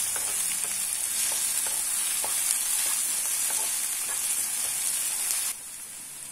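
Onions, green chillies and curry leaves sizzling in hot oil in a nonstick kadai, stirred with a wooden spatula that gives light scraping ticks. About five and a half seconds in, the sizzle suddenly drops quieter.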